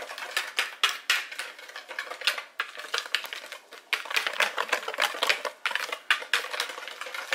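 Metal wire whisk stirring a dry flour and cornstarch mix in a bowl, its wires clattering against the bowl in quick, uneven clicks, several a second.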